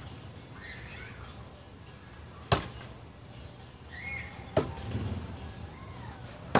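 Bill Page Bullseye Seeker throwing knives on one-spin throws striking a wooden target: three sharp thunks about two seconds apart.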